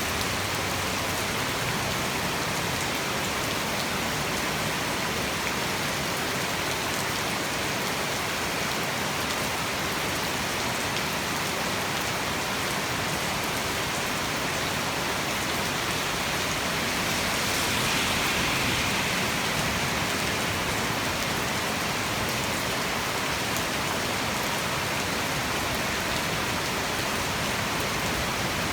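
Heavy tropical rain falling steadily, an even hiss of rain on surfaces that swells slightly about two-thirds of the way through.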